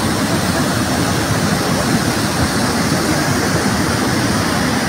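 Steady, loud rushing of a muddy flash-flood torrent: fast, churning floodwater raised by sudden heavy rain.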